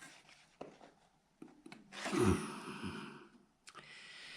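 A person's breathy sigh, falling in pitch, about two seconds in, preceded by a few small handling clicks.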